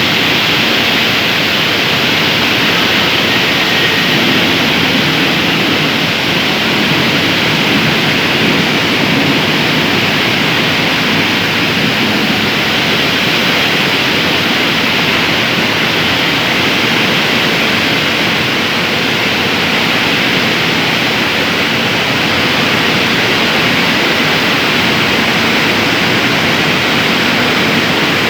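Steady, loud rushing noise of a steel mill's slab reheating furnace and its plant machinery, with a faint, even hum underneath and no change throughout.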